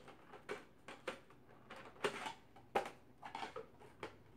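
Hard plastic parts of a Nerf Modulus blaster clicking and knocking together as a barrel attachment is handled and fitted on: a string of short, irregular clicks and clacks.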